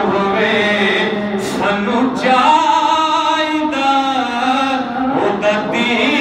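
A man reciting a naat, a devotional poem sung in praise of the Prophet, solo and unaccompanied, his voice holding long, wavering notes.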